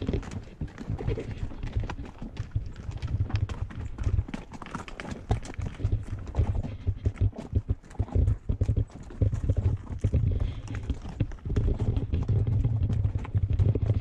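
Horse's hooves clip-clopping along a trail, many short sharp strikes in an uneven rhythm. Low bumps run underneath them.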